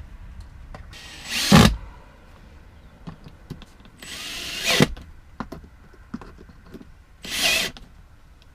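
Power drill running in three short bursts, a few seconds apart, as when driving screws into wall panelling and trim.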